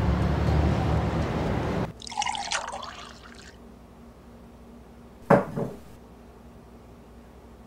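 A loud, steady rush of noise cuts off abruptly about two seconds in. Then tea is poured into a small cup for about a second and a half, and a single sharp knock follows a couple of seconds later.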